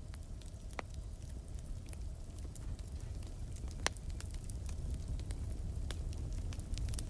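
Campfire burning with a steady low rumble and scattered crackles and pops, one sharper pop about four seconds in.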